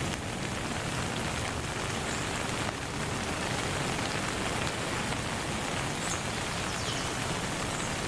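Steady rain falling, an even hiss of drops without a break.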